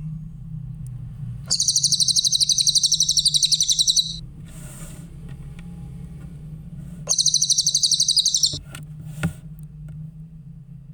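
Cililin songbird singing a rapid, high-pitched trill twice: a long phrase of about two and a half seconds, then a shorter one of about a second and a half, over a steady low hum.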